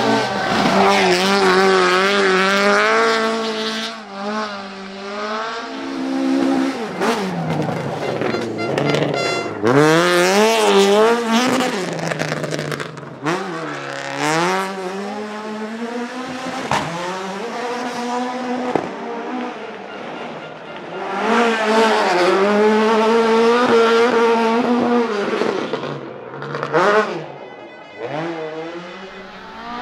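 Ford Escort Mk2 rally car's 2.5-litre Millington four-cylinder engine revving hard, its pitch swooping up and down repeatedly as it is driven flat out. Tyres squeal through a drift, and a few sharp cracks stand out.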